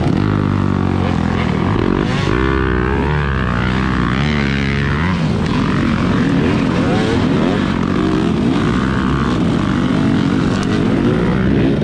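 Dirt bike engine, a Husqvarna 300, revving up and down over and over, its pitch rising and falling with the throttle.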